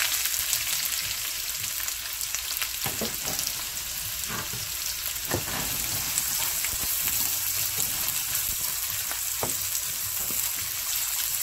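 Sliced onions sizzling in hot oil in a nonstick frying pan, a steady hiss. A spatula stirs them, scraping and knocking against the pan a few times.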